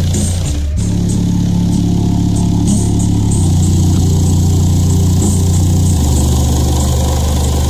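Four Gately Audio Alpha 6.5-inch car subwoofers playing music bass loud, heard from inside the truck cab. Long, deep bass notes change pitch every two to three seconds, with faint hi-hat ticks above.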